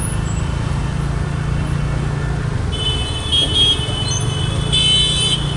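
Steady low rumble of a scooter ride through road traffic, with vehicle horns honking from about three seconds in, the longest blast near the end.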